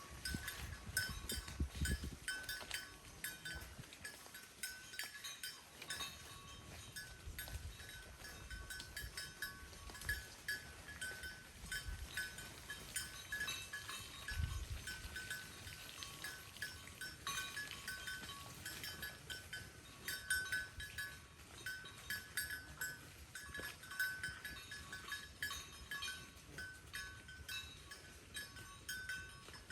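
Cattle eating hay: steady crunching and rustling, with a bell clinking on and off.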